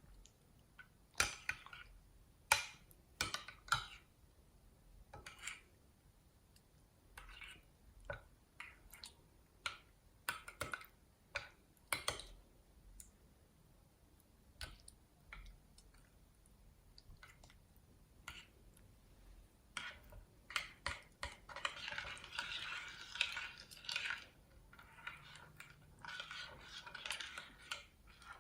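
Slime being mixed and handled: scattered sharp taps and clicks of a utensil against the container, then, about twenty seconds in, several seconds of dense, wet crackling squishing.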